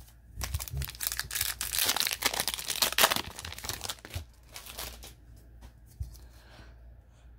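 Crinkling and tearing of a trading card pack wrapper, lasting about four seconds, followed by faint handling clicks.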